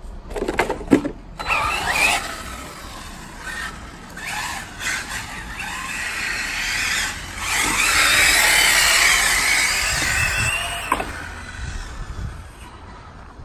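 Arrma Typhon RC rally car driven hard: its electric motor and drivetrain whine, rising and falling in pitch with the throttle, over the hiss of its tyres on the road, loudest about eight to ten seconds in before it fades into the distance. A few sharp knocks about a second in.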